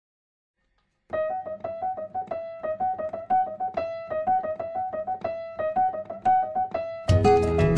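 Background music: silence for about a second, then solo piano playing a quick melody of separate notes. Near the end the music grows suddenly louder and fuller as a complete arrangement comes in.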